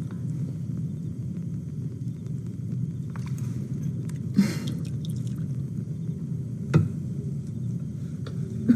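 Eating sounds over a steady low rumble: a spoon held in the mouth clicks against dishes three times, the first with a short scraping rustle.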